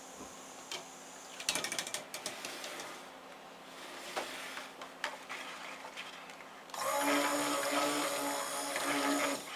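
Stick blender (immersion blender) running in cold-process soap batter in a plastic bucket, a steady motor whine for about two and a half seconds near the end, mixing in yellow mica. Earlier, a few clicks and knocks as the bucket is handled.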